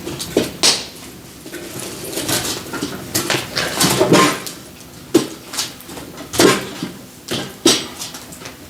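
Irregular sharp knocks and clatter, about ten strong hits at uneven intervals, with handling noise between them.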